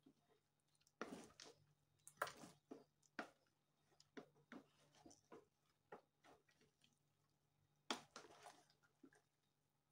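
A spatula stirring thick leafy meat soup in a large aluminium pot: faint, irregular wet squelches and scrapes, with sharper knocks against the pot about two seconds in and again about eight seconds in.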